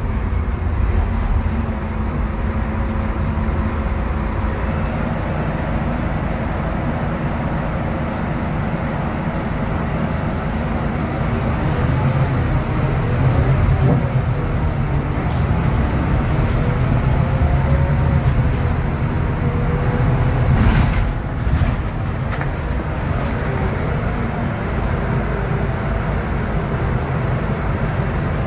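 Scania DC09 five-cylinder diesel and drivetrain of a city bus running under way, heard from inside the passenger cabin with road noise. The engine note rises and falls a few times. A single sharp knock or rattle comes about three-quarters of the way through.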